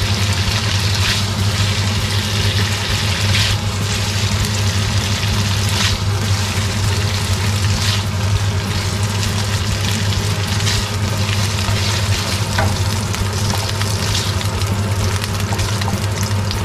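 Pork pieces sizzling in their own rendered fat in a nonstick wok, a steady frying hiss, while a spatula scoops them out with a few brief scrapes against the pan. A steady low hum runs underneath.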